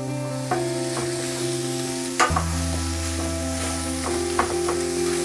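Boiled potatoes being stirred with a wooden spatula into masala frying in a non-stick pan: a steady sizzle with a few light scrapes and taps of the spatula. Steady background music plays underneath.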